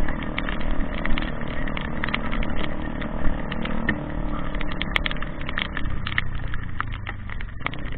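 A motor running steadily, with many short, sharp clicks over it.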